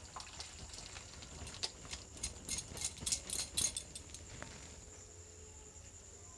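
Split milk poured into a steel mesh strainer: whey splashing and pattering into a steel bowl with light taps on the metal. It dies down about four seconds in as the chhana is left to drain.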